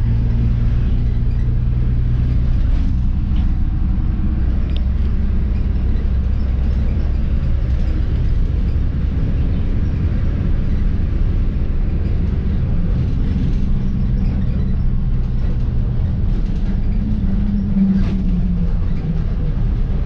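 A bus running along the road, heard from on board: a steady low engine rumble with road noise, the engine note rising briefly near the end.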